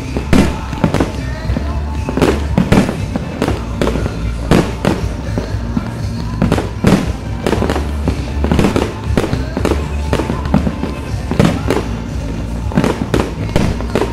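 Aerial fireworks shells bursting in a rapid, irregular string of bangs and crackles, two or three a second, with no let-up.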